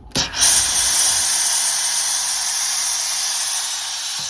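A steam iron blowing a continuous jet of steam: a steady, loud hiss that starts abruptly and eases only slightly. The steam is being used to shape a sleeve cap's seam allowances without the iron touching the cloth.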